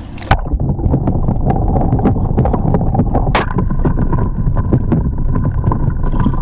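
Water heard through an action camera held underwater: a muffled, continuous low rumble with many small clicks and knocks against the housing. About halfway through there is one sharp click, and then a faint steady hum sets in.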